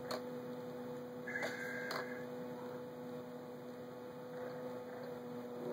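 Steady low electrical hum. A brief higher tone sounds over it about a second and a half in, along with a couple of faint clicks.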